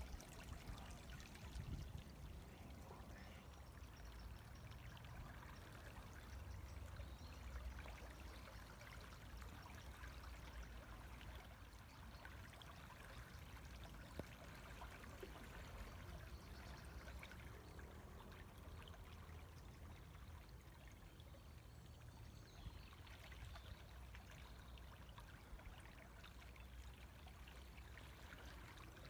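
River water flowing and trickling, a faint steady wash of running water.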